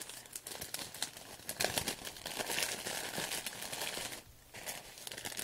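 Crinkling and rustling of a clear plastic bag and tissue paper being handled and unwrapped, in a quick run of crackles with a brief lull about four seconds in.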